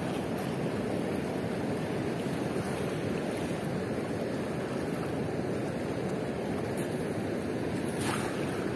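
Fast-flowing river water rushing steadily as a constant noisy wash. Near the end a brief splash as a thrown cast net lands on the water.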